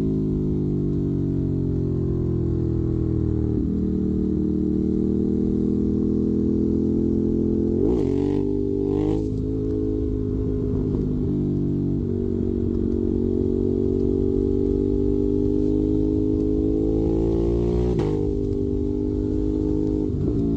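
Ducati Monster 821's V-twin engine running through a Termignoni exhaust, its pitch sliding up and down with several sudden jumps, as at gear changes, around a third of the way in and near the end.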